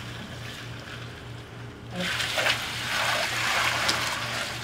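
Water splashing and streaming off a person as he rises out of an ice bath in a galvanized stock tank, starting about two seconds in. Before that there is only faint water sound over a low, evenly pulsing hum.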